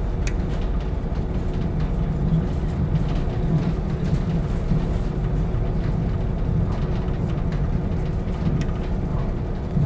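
KiHa 40 diesel railcar's engine idling while the train stands at a station: a steady low rumble with a faint constant hum and a few light clicks.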